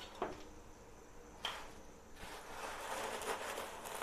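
Dry noodles dropped by hand into a pot of boiling water: faint rustling with a couple of light taps, the rustle growing a little louder about two seconds in.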